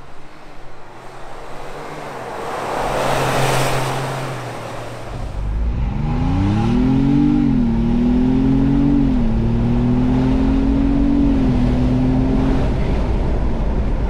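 A vehicle passes by, its noise swelling and fading over the first few seconds. Then, inside the cabin, the 2021 Ford Bronco Wildtrak's twin-turbo V6 pulls hard under full acceleration. Its pitch climbs and drops back three times as the automatic shifts up, and it eases off near the end.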